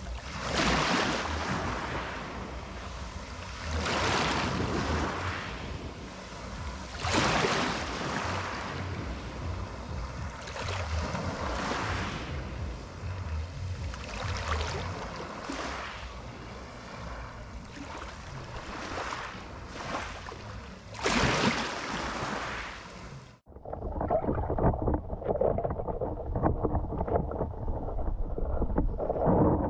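Small waves washing in over a shallow pebble beach, the rush of water swelling and falling back every few seconds. About three-quarters of the way through the sound cuts abruptly to the dull, muffled sound of the sea heard with the microphone underwater.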